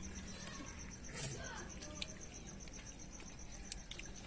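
A cricket chirping in a steady, rapid, high-pitched pulse. Faint voices and a few soft clicks can be heard in the background.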